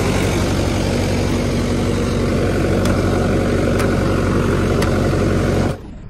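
Sonalika tractor's diesel engine running steadily at close range while threshing goes on, with a few faint ticks over it. The sound cuts off abruptly just before the end.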